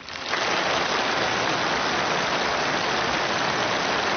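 Large crowd applauding after a speech: a dense, steady clatter of many hands clapping that swells in at once and holds level.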